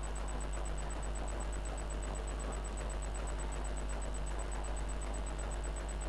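Steady low electrical hum with a faint hiss from the power-supply test bench running under load, with a faint high-pitched pulsing tone above it.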